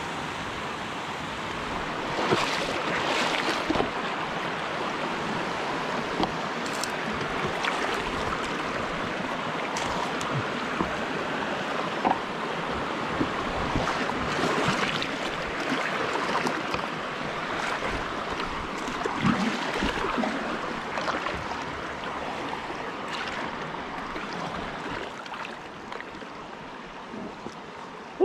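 Moving river water rushing and splashing steadily, with frequent short, sharp splashes and knocks scattered through it.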